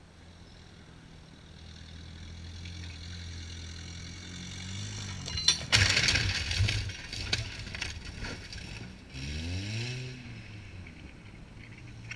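Mazda pickup truck's engine running and growing louder as it approaches, then a loud crash and splintering of wood as the truck smashes through a wooden fence panel, with several more cracks and knocks. About three seconds later the engine revs up, then settles back to a lower run.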